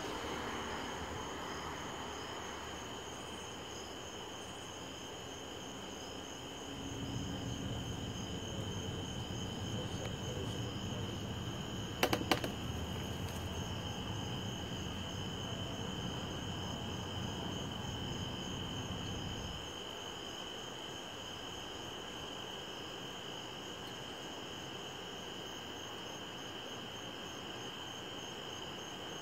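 Steady chorus of crickets: one high unbroken trill with a faster pulsing trill above it. A low rumble comes in about seven seconds in and cuts off near twenty seconds, with two sharp clicks about twelve seconds in.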